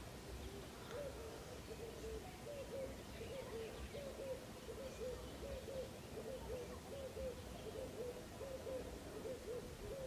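A bird calling faintly in the background: a long, even series of short low notes, about three a second and often in pairs.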